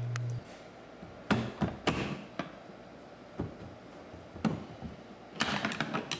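Scattered sharp clicks and knocks of hands and tools working a windshield wiper arm loose at its pivot on the cowl, with a quicker run of clicks near the end. A low hum cuts off just after the start.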